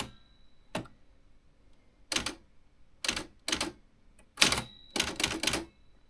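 Remington Quiet-Riter Eleven manual typewriter being typed on: about eight separate key strikes at an uneven, slow pace, with a quicker run of strikes near the end.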